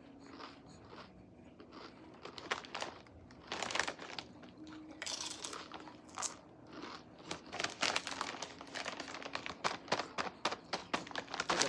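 Crunching of tortilla chips (Doritos) being chewed, mixed with the crinkle of a chip bag: many short, sharp crackles, sparse at first and growing denser and louder through the second half.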